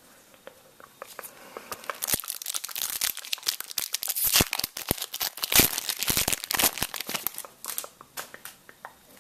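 A trading card pack being torn open: the wrapper crinkles and tears in a quick run of crackles, loudest in the middle, thinning to a few scattered clicks near the end.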